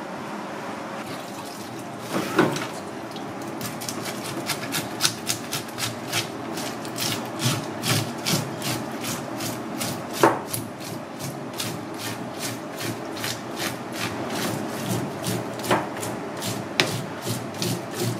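A fish scaler scraping the large scales off a whole fish in quick, repeated rasping strokes, about three a second, with a few louder knocks of the tool among them.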